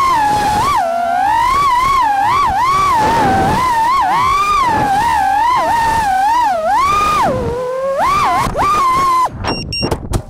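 FPV freestyle quadcopter's brushless motors and props whining, the pitch swooping up and down with the throttle. The sound cuts off suddenly about nine seconds in.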